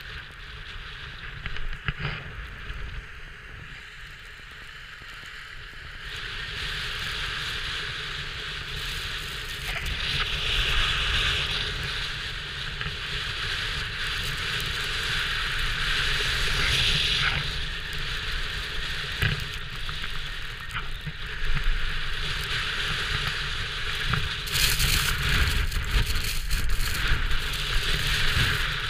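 Skis hissing and scraping over packed snow during a downhill run, with wind rumbling on the microphone; the scraping gets louder about six seconds in and again near the end as speed picks up.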